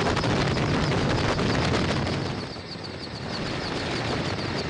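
Helicopter rotor and engine noise, a dense steady chopping rumble that dips briefly about halfway through.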